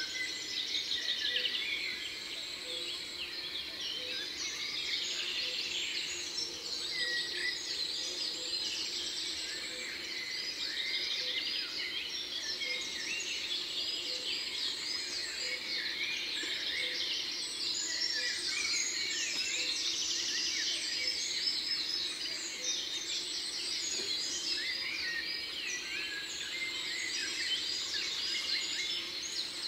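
Birds singing and calling in a dense outdoor chorus of short, high chirps and trills that runs on without a break.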